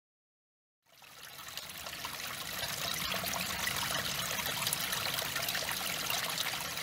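Small woodland stream trickling over mud and fallen twigs. It fades in from silence about a second in, then runs steadily.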